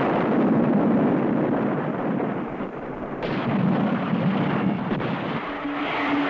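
Loud, sustained rumbling roar with no clear pitch, swelling twice, about a second in and again around four seconds in.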